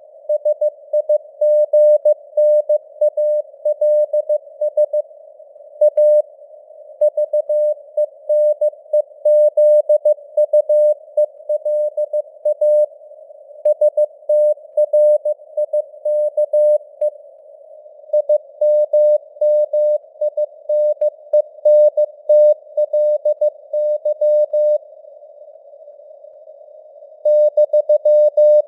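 Morse code (CW) at 15 words per minute: a single mid-pitched tone keyed on and off in dots and dashes inside a narrow band of simulated radio hiss. The signal strength fades up and down (QSB). The keying stops for about two and a half seconds near the end, then resumes.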